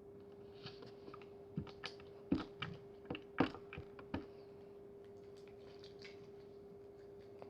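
Handmade slime being squeezed and poked by hand, giving a run of small sticky clicks and pops during the first four seconds, then only a few faint ones, over a steady low hum.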